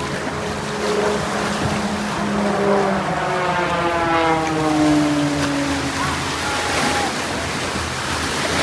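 Aircraft flying past at an air show: a loud engine roar whose pitch slides steadily downward from about three to six seconds in as the plane passes and moves away.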